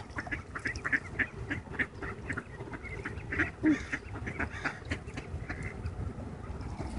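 A flock of mallard ducks quacking in many short, irregular calls.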